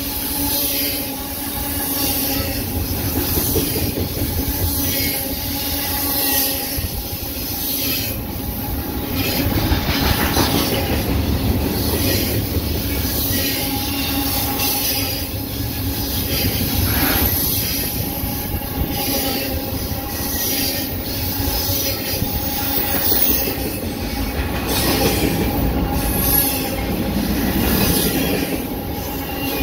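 Freight train of double-stack container well cars rolling past on a curve: steel wheels squealing against the rail with steady ringing tones, over a continuous rumble and clatter of wheels and cars.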